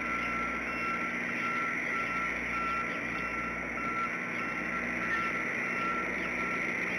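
A vehicle's reversing alarm beeping steadily at a regular pace, heard from a distance over a steady outdoor background hiss.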